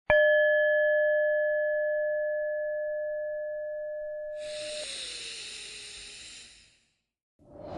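A single bell strike, the cue to begin the breathing exercise, rings with a clear tone that fades over about five seconds. About four seconds in, a long breath is heard for about two seconds.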